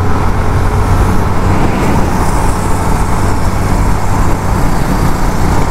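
Yamaha FZ-X motorcycle engine running steadily at road speed, under heavy wind rush on the microphone.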